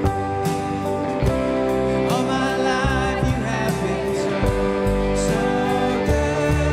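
Live worship band playing a slow gospel song: upright bass, drum kit with cymbals, acoustic guitar and keyboard, with a singer's voice over the band.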